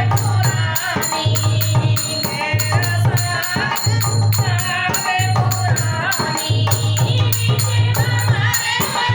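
A devotional Hindi song playing: sung voices over a steady beat with a shaker or rattle keeping the rhythm.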